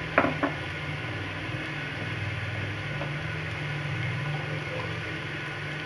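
Two quick metal clinks near the start, from a steel spoon against the aluminium pressure-cooker pot of cooking carrot halwa, over a steady low hum.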